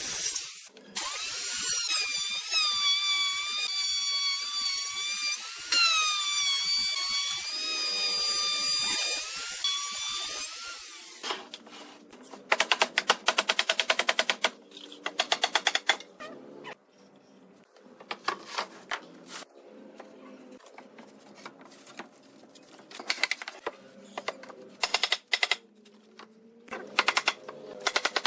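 A power tool running with a high-pitched whine that wavers slightly in pitch for about eleven seconds, then stops. After that come several short bursts of rapid rattling clicks.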